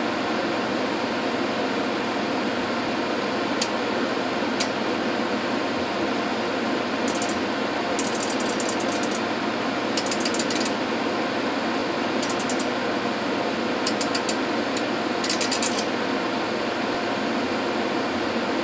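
Tektronix DPO7254 oscilloscope booting up: its cooling fans run with a steady whir. Bursts of rapid clicking come in clusters from about a third of the way in until near the end, with a couple of single clicks before them.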